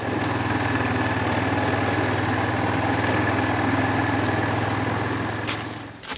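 An engine running steadily at an even pitch. It begins abruptly and fades out near the end.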